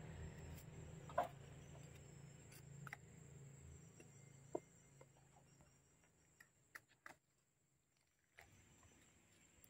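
Near silence, with a few faint separate clicks and knocks from hands clearing soil and debris around tree roots. A faint low hum dies away about four seconds in.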